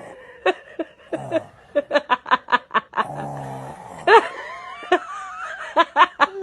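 A baby giggling in quick, high-pitched bursts, with loud squeals about four seconds in and again near the end. A short low, buzzy voice sound comes just after the giggling run, about three seconds in.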